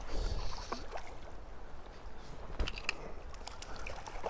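Hooked brown trout thrashing at the surface of a river, its splashes landing as a cluster of sharp slaps about two and a half seconds in. A low rumble on the microphone runs underneath.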